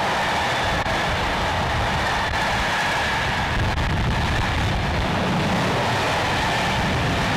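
A long rake of freight hopper wagons rolling past close by at speed: a steady, loud rumble and rattle of wheels on rail, with a steady high ring running through it.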